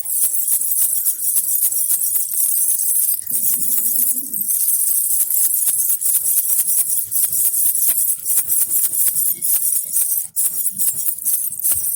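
Baby rattle with small jingle bells shaken continuously: a dense, bright jingling rattle of many quick clicks.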